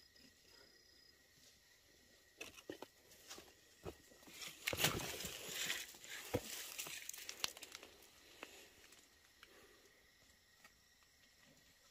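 Rustling and crackling of dry brush and stalks as someone pushes through on foot, with scattered snaps and clicks, busiest in the middle few seconds.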